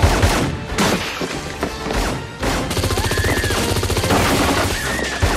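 Gunfire in a film shoot-out: several single pistol shots, then from about two and a half seconds in a long rapid burst of shots, with music underneath.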